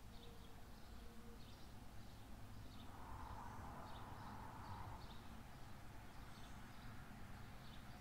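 Faint outdoor ambience: small birds chirping over and over above a low steady rumble, with a soft swell of noise about three seconds in that fades after a couple of seconds.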